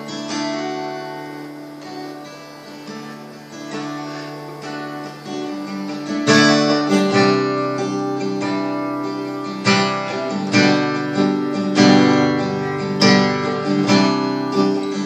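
Acoustic guitar playing an instrumental break between sung verses: soft, ringing chords for about the first six seconds, then firmer strummed chords from about six seconds in.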